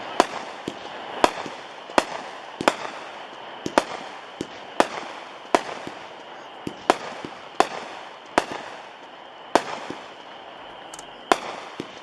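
World Class 'Ultimate Warrior' 16-shot 200-gram fireworks repeater cake firing: a run of sharp bangs, roughly one a second and unevenly spaced, as the shots go up and the shells burst.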